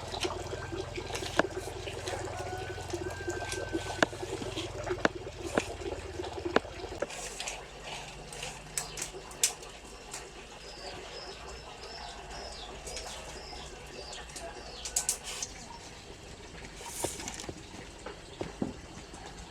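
Scattered sharp taps and knocks with birds chirping. A low hum runs through the first several seconds and then stops.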